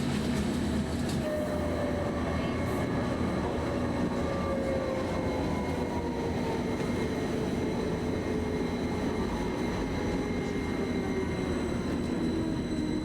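Train running steadily, with a motor whine that falls slowly in pitch.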